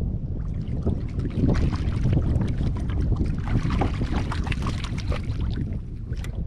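Wind buffeting the microphone with a steady low rumble, on a kayak out on open water, with many small irregular ticks and clicks throughout.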